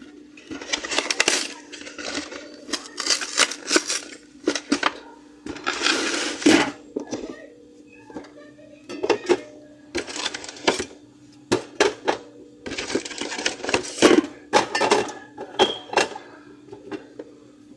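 Drink cans clinking and knocking against each other and the fridge shelves as they are stacked in, a long run of sharp clicks and clatters with short scraping slides in between.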